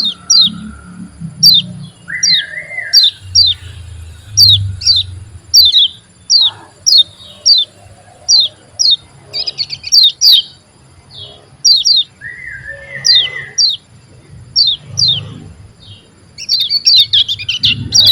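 Kecial kuning songbird calling: a long run of short, sharp, high chirps that slide downward, about two a second, with a lower warbled phrase twice. It breaks into fast, dense twittering near the end.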